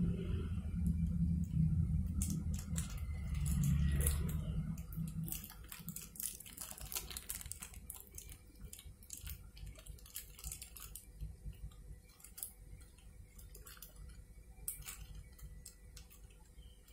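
Small plastic zip-lock bag of fish oil capsules crinkling as a hand squeezes and turns it, in scattered sharp crackles. A low drone fades out over the first five seconds.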